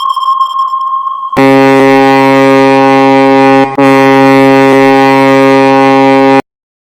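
A steady high electronic tone, then from about a second and a half in a ship's horn sounding loud and deep on one low note. The horn breaks briefly about halfway, sounds again, and cuts off suddenly.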